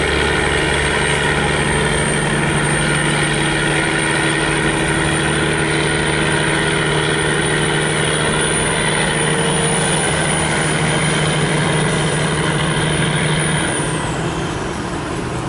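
Barge's diesel engine running hard at high revs, a loud steady drone with a thin high whine above it, easing off near the end. The laden barge is straining to back away with its bow probably aground in the shallow water.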